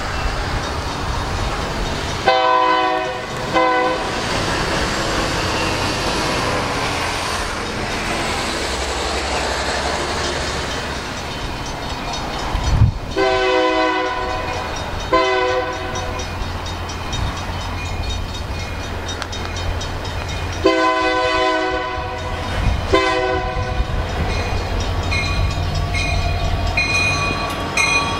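Union Pacific EMD SD70M diesel locomotives approaching with the horn sounding three times, each a long blast followed by a short one, over the steady rumble of their engines. In the last few seconds the lead units pass close, with a deeper engine hum and rhythmic wheel clatter.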